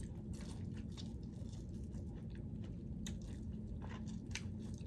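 A person chewing and biting corn on the cob, with scattered small wet clicks and crunches.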